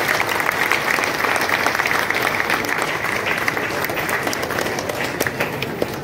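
An audience applauding: many people clapping their hands together at a steady level.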